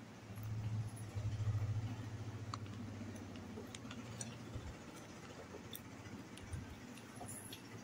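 A low steady hum that fades out about four and a half seconds in, with faint scattered clicks and taps of fingers picking fish off a china plate.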